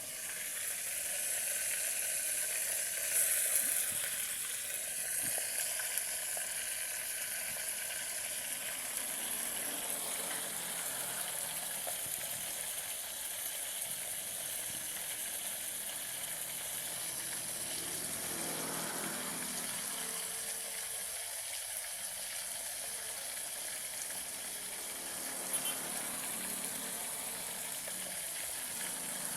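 Chicken frying in hot oil, a steady high sizzle that swells slightly about three seconds in.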